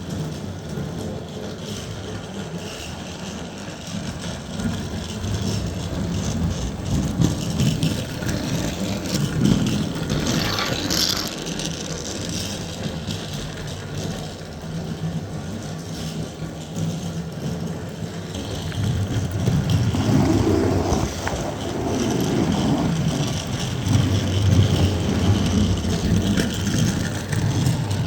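Battery-powered TrackMaster toy train engine running around a plastic track oval, its motor whirring and its wheels rattling on the track. It swells louder twice as it passes close by, then fades again.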